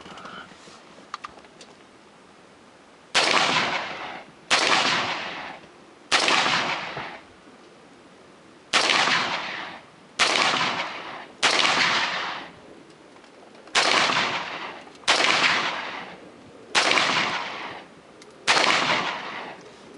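AR-15-style rifle fired semi-automatically: ten single shots at an uneven pace, a second or two apart, each followed by a ringing echo that dies away over about a second.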